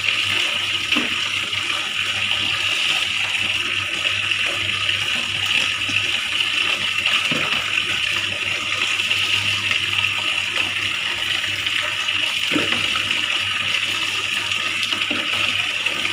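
Tap water running steadily from a wall faucet into a plastic basin, with a few brief splashes as water is scooped and poured from a plastic mug over clothes being washed by hand.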